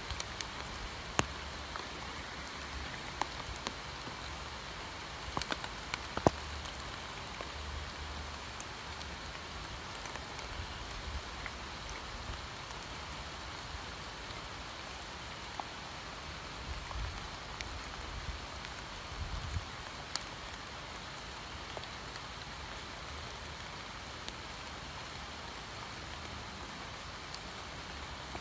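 Steady rain, an even hiss with scattered sharper drop taps, the loudest about a second in and around six seconds in.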